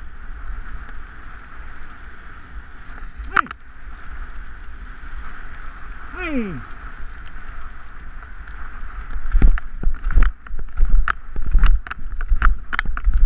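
Wind and tyre rush on a bike pulled by two dogs along a gravel track, with two short calls falling in pitch. From about nine seconds in come loud, irregular knocks and rattles as the bike jolts over rough gravel.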